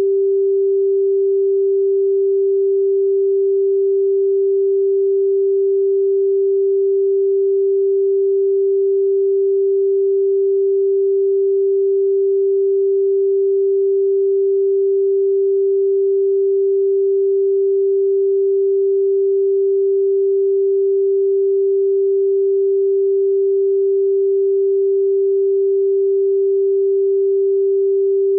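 A steady, unbroken pure sine-wave test tone at 392 Hz, the pitch of G above middle C (G4).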